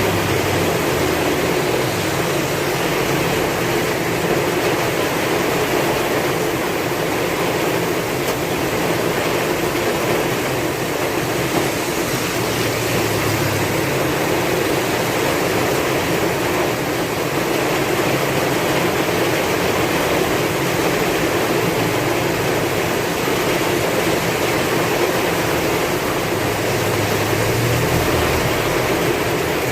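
Heavy rain falling steadily with strong wind: a dense, unbroken hiss, with a low rumble underneath that swells a few times.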